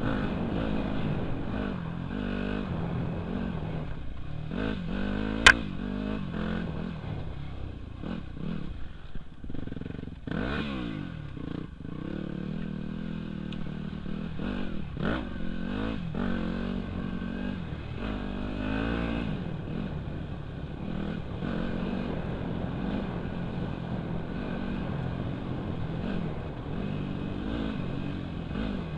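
Dirt bike engine heard through a helmet-mounted camera, revving up and easing off over and over while riding. A single sharp click sounds about five seconds in.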